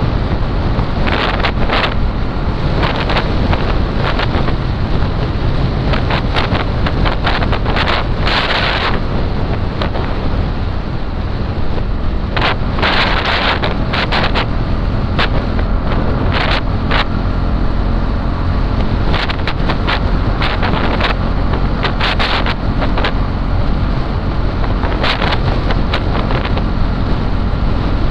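Wind buffeting hard on the microphone in irregular gusts while riding, over a steady motorcycle engine drone and road rumble.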